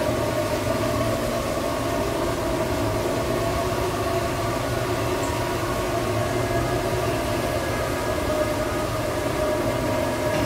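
Steady mechanical hum of roller coaster ride machinery: several held tones over a low rumble, unchanging throughout.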